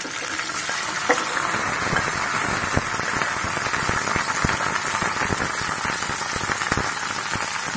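Cut okra sizzling and crackling in hot oil in a stainless steel pan, a steady hiss that starts as the pieces are tipped in from a bowl.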